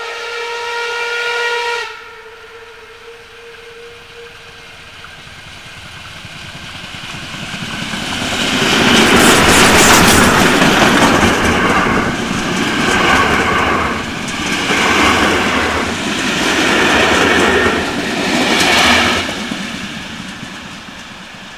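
Class 52 steam locomotive sounds one blast on its steam whistle, about two seconds long. It then approaches and passes close by with its coaches: a loud rumble and hiss with wheels clattering over the rail joints, swelling and dipping as the coaches go by, then fading as the train draws away.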